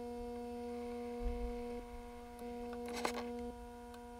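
Steady electrical hum at one low pitch with overtones. It drops out for a moment about two seconds in and again near the end, and a short handling rustle comes about three seconds in.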